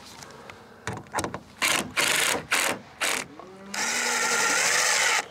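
Cordless drill driving screws to fasten a plywood sheet to the wooden framing: several short bursts, then a longer steady run starting about two thirds of the way in.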